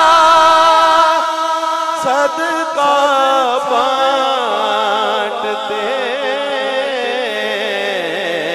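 A man's voice singing a naat through a PA system, holding long wavering notes in a melismatic line. A steady lower hum runs beneath from about halfway through.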